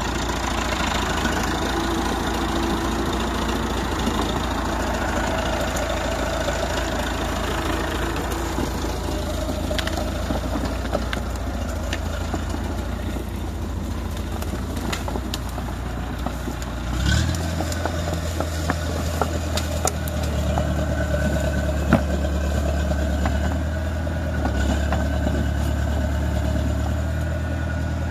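Crawler tractor's engine running steadily as the tractor moves with its rotary tiller. About 17 seconds in there is a brief clatter, after which the engine note turns deeper and heavier. A single sharp knock comes a few seconds later.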